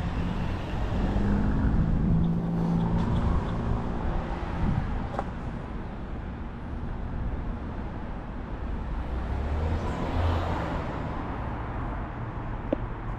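Street traffic: motor vehicles running close by, with a vehicle's engine hum in the first few seconds and a low rumble of passing traffic swelling about ten seconds in.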